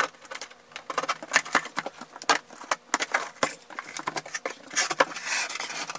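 Large cardboard shipping box being handled and its taped flaps pulled open: a run of scrapes, knocks and crinkles of cardboard, with a longer rasp about five seconds in.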